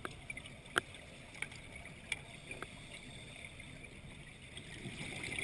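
Underwater sound picked up by a camera in its housing while diving through a flooded cave: a steady faint hiss with a few sharp clicks, growing a little louder about five seconds in.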